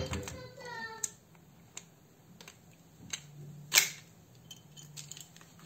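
Flathead screwdriver prying the plastic end cap off a T5 fluorescent tube light fitting: scattered clicks and creaks of plastic, with one loud sharp snap a little under four seconds in as the cap comes free.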